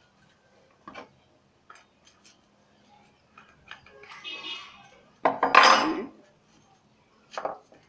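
Metal tools and parts clinking and knocking as they are handled, with a louder clatter lasting most of a second about five seconds in and another knock near the end.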